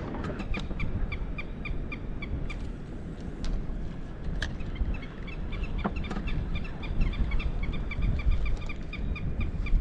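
Wind rumbling on the microphone, with a steady run of short high-pitched pips, about four a second, that come faster toward the end, and a few sharp clicks.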